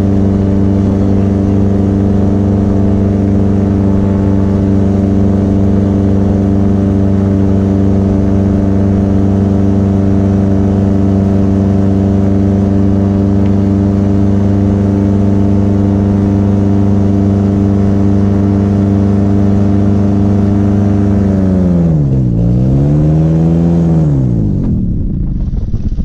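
Paramotor engine and propeller running at a steady pitch. About 22 seconds in, the pitch drops sharply, picks up briefly, then sinks away as the motor quits in flight, leaving wind noise on the microphone.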